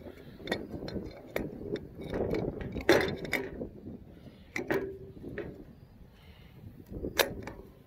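Brake pads clicking and knocking in a disc brake caliper as they are handled and seated in their clips: a scatter of sharp metallic clicks, the loudest about three seconds in and another near the end.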